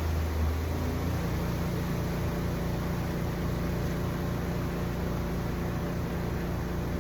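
The spin-dryer side of a portable twin-tub washing machine spinning, its motor humming steadily while the spun-out water drains away. About a second in, the low hum changes to a faster flutter.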